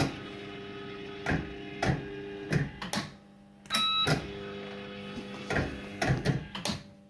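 Firecracker fruit machine playing spins: a short electronic beep starts each spin, the reels run with a steady hum, then stop one after another with sharp clunks about half a second apart. The cycle happens twice.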